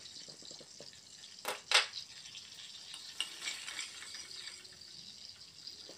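Chopped garlic frying in melted butter in a steel pan, a steady soft sizzle. A spoon stirs it, with two sharp clicks against the pan about a second and a half in and a few lighter ticks later.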